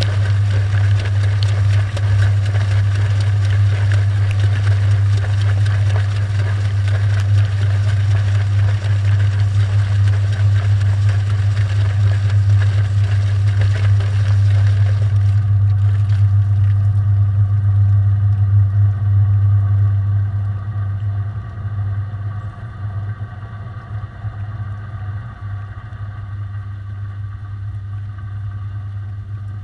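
Washing machine drum spinning, heard from inside the drum through a camera's waterproof housing: a loud, steady low hum with a hiss over it. About fifteen seconds in the hiss drops away, and from about twenty seconds in it is quieter.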